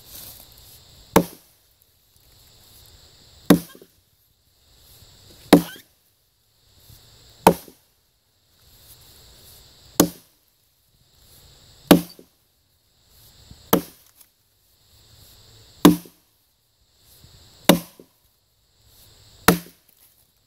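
A phantom-bevel boy's axe chopping into a log: ten sharp blows, about one every two seconds, each preceded by a soft rising hiss.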